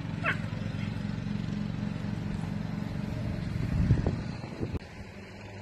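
An unseen motor vehicle's engine running steadily, growing louder around four seconds in with a few thumps before it drops away. A short high chirp sounds near the start.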